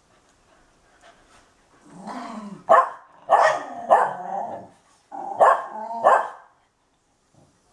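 Puli dogs play-growling and barking at each other, in two runs of growls with sharp barks, the first starting about two seconds in and the second after a short pause near the middle.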